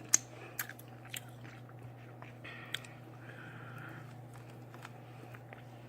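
A person chewing food close to the microphone: sparse wet mouth clicks and smacks, more of them in the first second, over a steady low hum.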